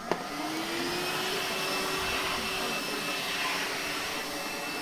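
Kärcher HV 1/1 Bp Cs battery-powered vacuum cleaner switched on with a click, its motor rising in pitch over about a second as it spins up, then running steadily.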